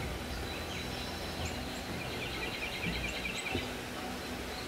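Outdoor ambience: birds chirping, with a fast trill in the middle, over a low, steady rumble.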